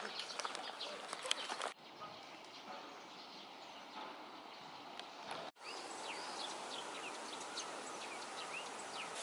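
Park ambience in light rain: a steady hiss with scattered drips and birds chirping, most clearly in the last few seconds. The background changes abruptly twice, less than two seconds in and again about five and a half seconds in.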